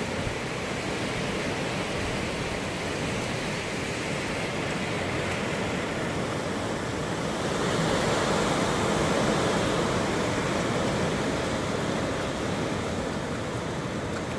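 Hurricane wind blowing steadily in a dense rush of noise, with a stronger gust building from about halfway through and easing off near the end.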